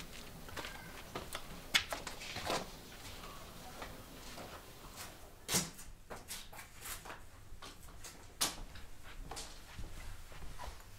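Quiet background with scattered light clicks and knocks, the sharpest about five and a half seconds in and again about eight and a half seconds in.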